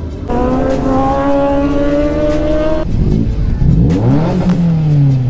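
Sport motorcycle engines: one pulls away with its pitch climbing steadily, then about three seconds in several engines rev, their pitches rising and falling across one another.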